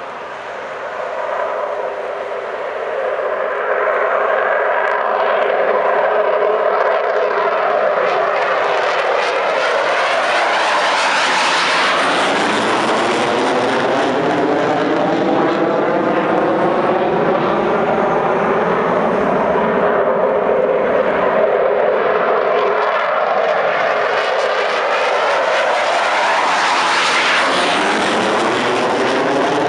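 Military fighter jets taking off one after another, their jet engines at takeoff power. The noise builds over the first few seconds and swells as each jet passes, once about a third of the way in and again near the end.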